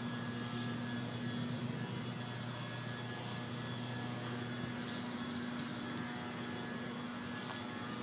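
A steady mechanical hum of constant pitch and level, from an unseen motor or machine. A brief faint high chirp comes about five seconds in.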